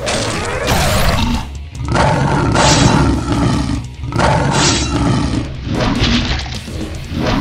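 Dubbed monster-roar sound effects, one about every two seconds, over background music.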